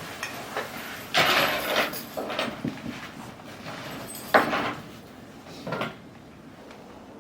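Hiker's footsteps crunching in snow: a few irregular steps. The loudest land about a second in and just past four seconds, with lighter ones between and near the end.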